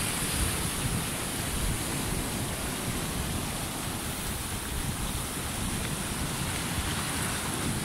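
Surf breaking and washing over a shallow rocky reef, a steady rush of foaming water.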